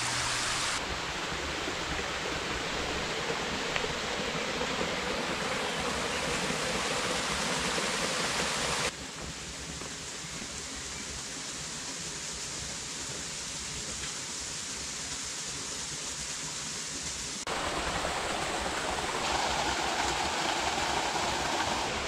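Rushing water of a river and waterfall, a steady hiss. It drops suddenly in level about nine seconds in and comes back up suddenly about seventeen and a half seconds in.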